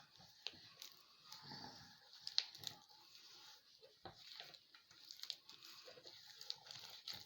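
Faint, irregular wet squelching and small clicks as soft butter, icing sugar and cheese portions are worked together in a bowl.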